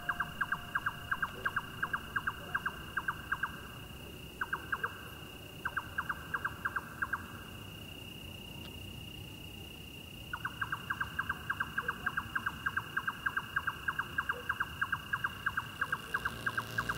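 Cricket-like chirping: a fast, even run of clicking pulses, about seven a second, over a steady thin high tone. The pulses break off a few times, with the longest pause of about three seconds near the middle, then run on.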